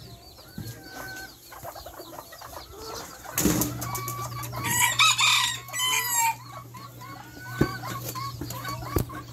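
Bantam chickens clucking, and about three and a half seconds in a bantam rooster crows loudly for roughly two and a half seconds. A steady low hum runs underneath.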